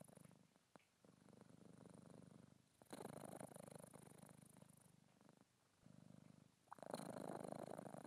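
British Shorthair cat purring softly, the purr swelling and fading in cycles of a few seconds as it breathes in and out, with brief gaps between breaths.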